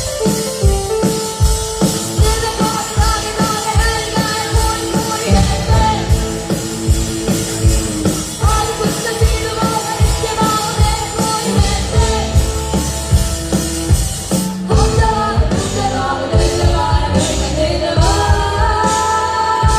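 Live rock band playing, a drum kit keeping a steady beat under sustained melody lines; the arrangement changes about fourteen seconds in.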